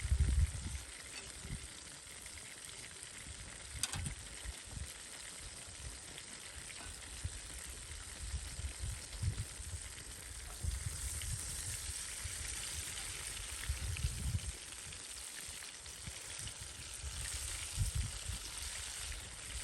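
Oil sizzling steadily as karaage chicken pieces deep-fry, a continuous hiss that swells somewhat in the second half, with a sharp click about four seconds in and a few low rumbles.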